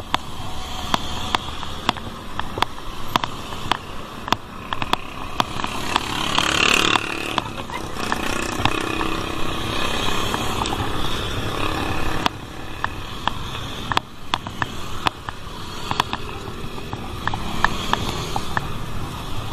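Road and traffic noise heard from a moving bicycle: a steady rush with sharp clicks scattered throughout, and a louder swell about six to seven seconds in, like a motor vehicle passing.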